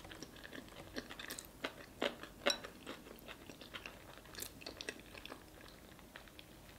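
A person chewing sauce-coated seafood close to the microphone: irregular wet mouth smacks and small clicks, thinning out near the end.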